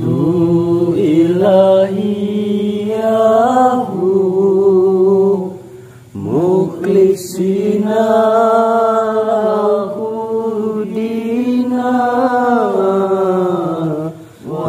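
A single voice chanting Islamic sholawat in long, held, gently ornamented phrases, pausing for breath about six seconds in and again near the end.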